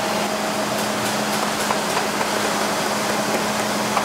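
Steady drone of boot-factory machinery with a constant low hum. A few faint taps of a hammer driving pegging nails into a leather boot sole come through it.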